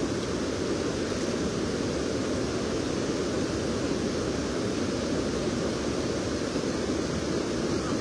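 Steady rush of fast, flood-swollen river water pouring over a weir, an even roar with no breaks.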